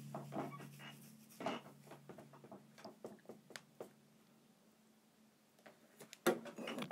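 The last note of a song dying away, then faint scattered clicks and taps of handling in a small room, with a short cluster of them near the end.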